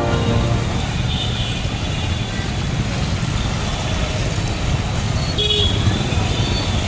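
Road traffic: a steady rumble of passing vehicles, with a brief horn toot about five and a half seconds in.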